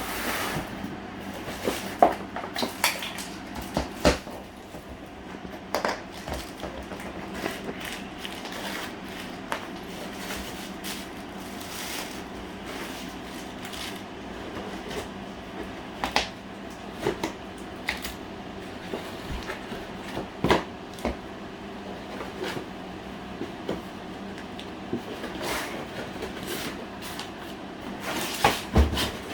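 Faucet's packaging being opened and handled: irregular knocks, taps and rustles, some sharp, over a steady low hum.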